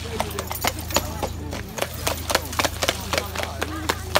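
Trotting horses' hooves clip-clopping on a wet paved road, the beats coming unevenly and overlapping, with crowd voices in the background.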